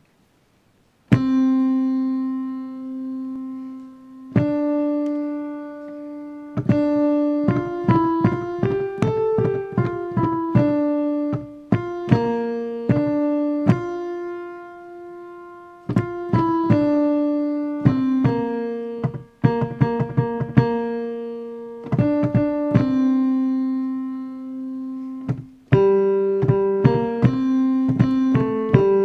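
Piano picking out a single vocal line one note at a time, in the alto range, starting about a second in: a part-learning track for the alto voice of a choral song.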